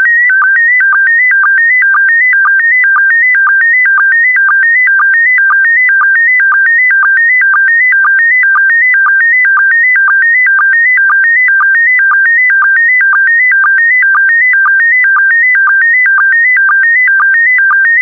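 SSTV PD120 image transmission: a loud electronic tone hopping between two pitches in the same pattern about twice a second, each repeat marked by a brief lower sync blip. It carries the scan lines of a dark, nearly uniform blue part of the picture.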